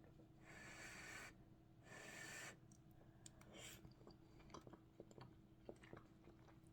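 Near silence: room tone, with two short, soft hissing noises in the first few seconds and a few faint clicks.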